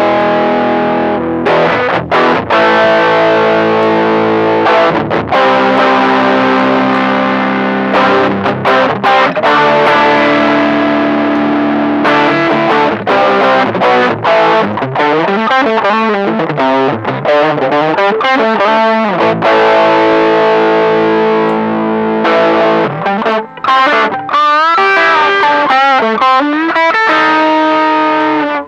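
Electric guitar played through a TC Electronic Dark Matter distortion pedal, engaged with its voice toggle set: distorted chords are struck and left to ring through the first half. In the second half come single-note lead phrases with bends and vibrato.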